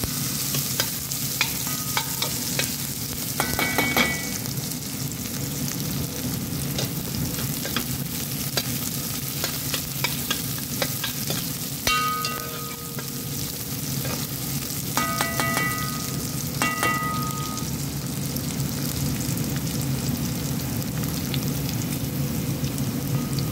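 Shallots, garlic and sesame seeds sizzling in hot oil in a frying pan while a spatula stirs them, scraping and tapping against the pan, with a few short ringing taps.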